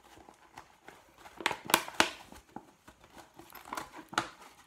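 Clear plastic mesh-lined zipper file bag crinkling as hands fold and press its material, in irregular crackles that are strongest a second and a half to two seconds in.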